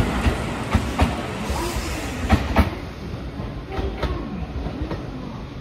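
Tobu 8000-series electric train running on the rails, its wheels clicking sharply over rail joints several times. About two and a half seconds in, the sound changes to a train rolling slowly over pointwork: a couple more wheel clicks and faint shifting tones.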